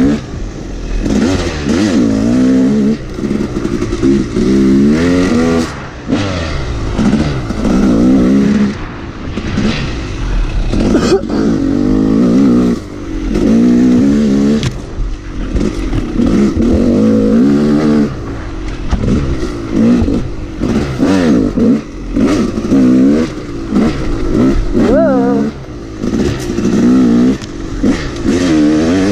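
Dirt bike engine revving up and down over and over, its pitch rising and falling every second or two as the throttle is opened and closed while riding a rough trail.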